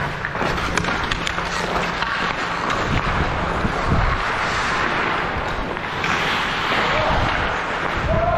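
Busy ice-rink game noise: a steady wash of background voices and play on the ice, with a few sharp clacks in the first second or so. There is wind noise on the microphone.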